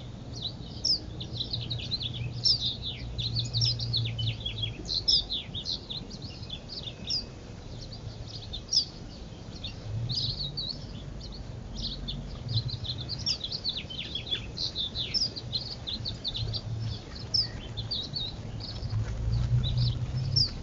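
Many small birds chirping at once, a dense stream of short, overlapping high chirps, with a low hum underneath that comes and goes.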